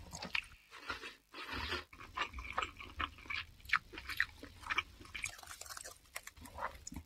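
Chewing and biting sound effect: irregular, crunchy, wet smacks of someone eating raw flesh, standing for a heart being eaten.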